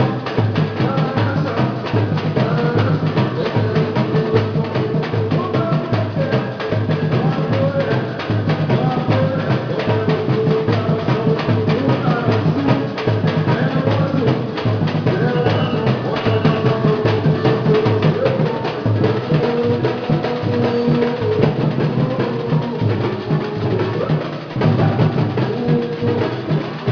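Batucada-style percussion ensemble playing a fast, steady drum groove, with a melody carried over the drums.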